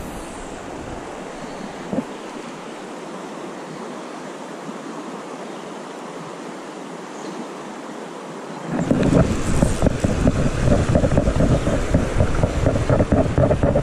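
Steady rush of flowing river water. About nine seconds in, a much louder, gusty rumble of wind on the microphone suddenly takes over.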